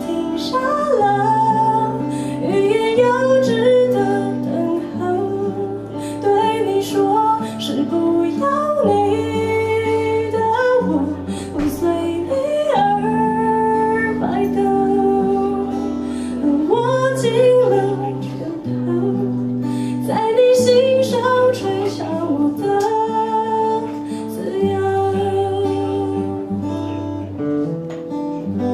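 A song played on guitar with a melodic singing line, over steady bass notes that change every second or two.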